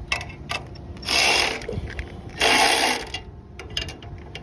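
Ratchet tool driving a bolt down tight, in two short runs of under a second each with a few small clicks between.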